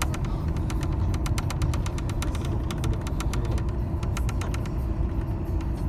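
Road vehicle running, heard from inside its cabin: a steady low engine and road rumble with a rapid, regular ticking rattle over it.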